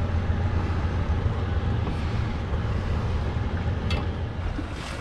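Boat's outboard engine idling as a steady low hum, with wind rushing over the microphone.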